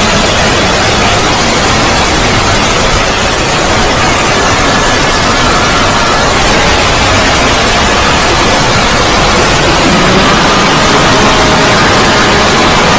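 Loud, steady wall of static-like noise with a few faint held tones buried in it: a distorted, layered 'void' logo sound effect.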